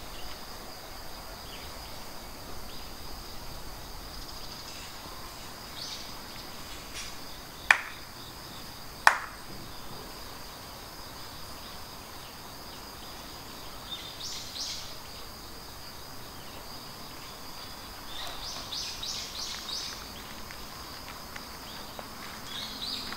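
Steady high insect drone with a few short trilling bursts. Two sharp cracks about a second and a half apart are the loudest sounds.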